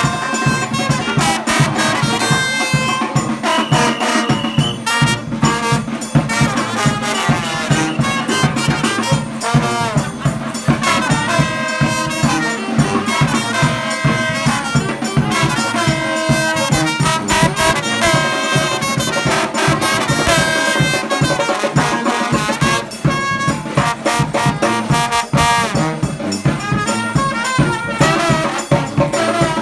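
New Orleans-style brass band playing, with trumpet and trombone carrying the melody over a steady drum beat.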